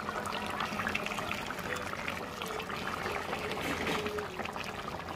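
Thick tamarind fish curry bubbling in a wide pan: a steady simmer with many small pops.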